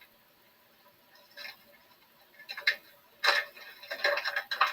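Kitchen handling noise as chili seasoning goes into a pot: quiet at first, then a few quick clicks and rattles from about a second and a half in, coming closer together near the end.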